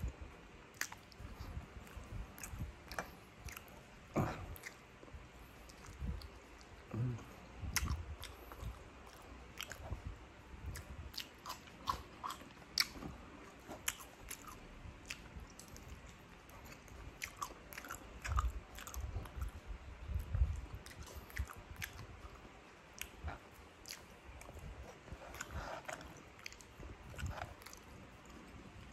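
Close-up eating sounds: chewing and crunching small crispy crumbs, with many short irregular crackles and clicks.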